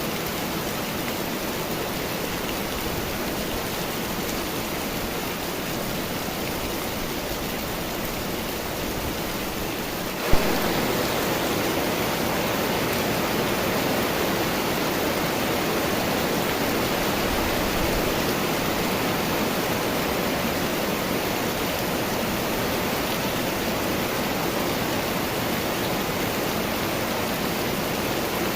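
Steady rainfall from a summer storm: an even, continuous hiss of rain. About ten seconds in there is a single sharp click, and the rain then runs a little louder and fuller.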